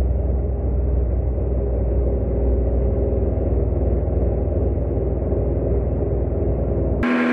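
Steady, muffled low rumble with the high end cut off, switching in and out abruptly at hard edits.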